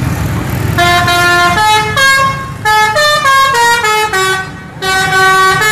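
Bus musical "telolet" horn playing a melody of stepped, mostly falling notes, several horn tones sounding together, over the bus engine's running. The horn starts just under a second in.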